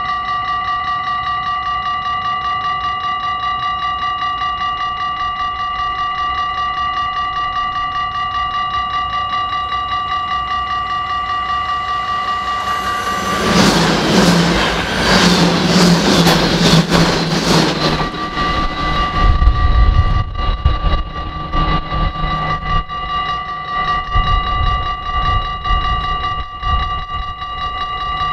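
Dutch level-crossing bell ringing in a fast, steady pulse. About 13 seconds in, a passenger train rushes past loudly for about four seconds, wheels clattering over the crossing and drowning out the bell. The bell then rings on over a low rumble as the train moves away.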